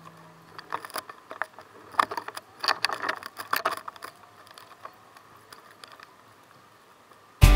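A scatter of small, irregular clicks and light knocks, thickest in the first few seconds and dying away to near quiet, with music starting up right at the end.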